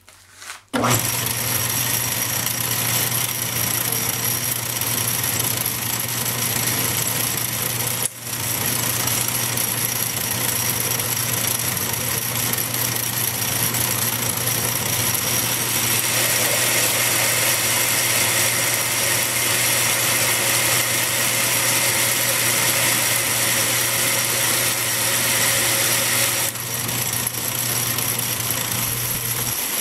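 Metal lathe switched on about a second in and running steadily, spinning a shaft driven by a lathe dog on the faceplate, with a brief dip about eight seconds in. From about halfway a higher hiss joins for some ten seconds as the tool cuts the shaft down.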